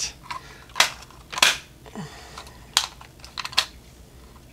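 Sharp plastic clicks and clacks, half a dozen spread over a few seconds, from an Amiga ball mouse being handled and worked open in the hands; the mouse barely tracks.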